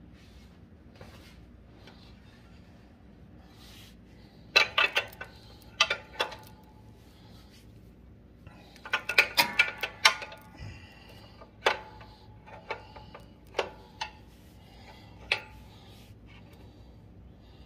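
Sharp metallic clicks and clinks, in quick clusters and then a few single ones: hand tools working the nut on the threaded tension rod that pulls the mower's engine back to tighten the drive belt.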